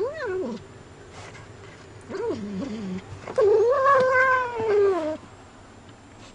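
Domestic cat yowling in warning three times: a short call, a lower falling one, then a long, loud yowl lasting nearly two seconds that drops in pitch at the end. It is the possessive yowl of a cat that will not give up what it is guarding.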